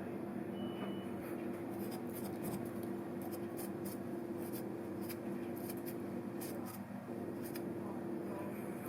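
Milling machine running steadily, a constant motor hum with light scratchy ticks from the work.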